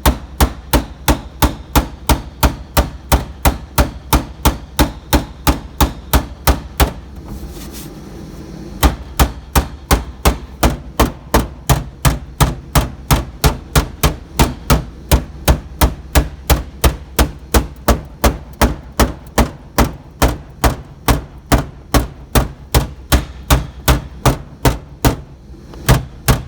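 Rapid, evenly spaced striking on car-body sheet metal, about three or four blows a second, with a brief pause about seven seconds in before it starts again.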